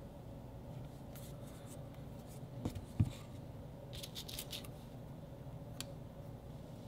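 Quiet handling at a workbench: a plastic glue bottle is set down on the table with a dull knock about three seconds in, followed by light crisp ticks and rustles as a thin strip of material is picked up.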